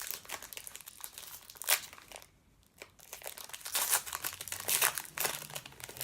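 Plastic wrapper of a trading-card pack crinkling and tearing as it is opened, with a short pause partway through before more crinkling and handling of the cards.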